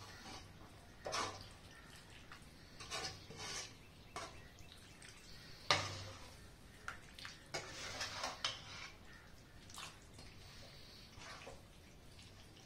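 A long metal spoon stirring chicken in thin curry gravy in a metal pot: wet sloshing with scrapes and knocks of the spoon against the pot, in irregular strokes every second or two, the sharpest knock about six seconds in.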